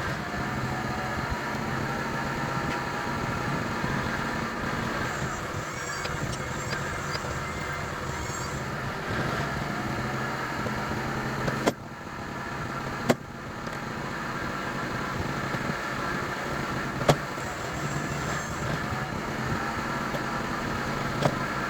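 Sawmill engine running steadily, with a few sharp knocks: once close to the middle, again about a second and a half later, and twice more near the end.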